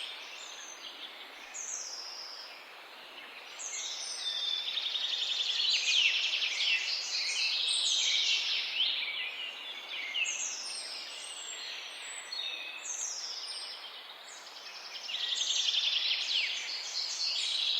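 Several birds chirping and singing at once, a mix of rapid trills and short down-slurred notes, busier in two stretches, over a faint steady background hiss.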